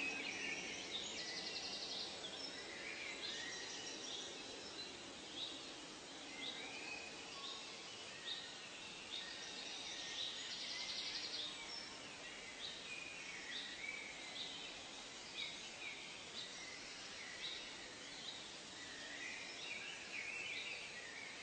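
Birds calling in a forest ambience: many short, high chirps repeating about once a second and overlapping one another, over a faint steady hiss. A buzzy trill comes in twice, about a second in and again around ten seconds in.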